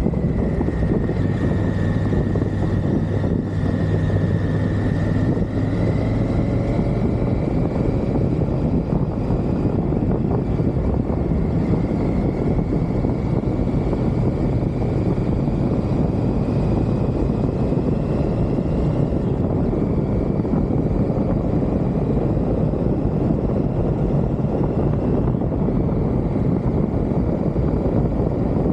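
Triumph Tiger motorcycle riding at road speed: the engine runs steadily under heavy wind rush on the microphone, its note drifting slowly up and down.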